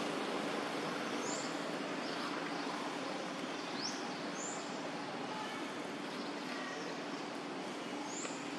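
Steady outdoor background hiss with a few short, high rising chirps scattered through it.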